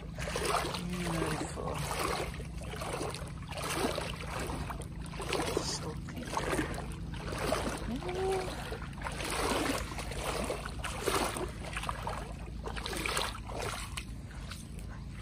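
Water splashing and sloshing in repeated swells, about one every second and a half, over a low steady rumble.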